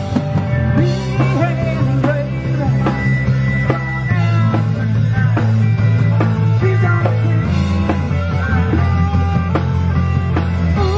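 Live rock band playing: a drum kit keeps time under long sustained bass notes that shift about 4 s and 7.5 s in, with a lead line that bends in pitch above.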